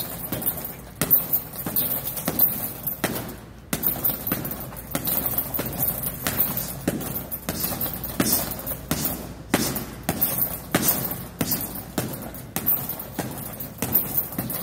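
Boxing gloves landing light hooks on a heavy punching bag hanging on chains: a long string of thuds, a little under two a second, placed rather than thrown hard.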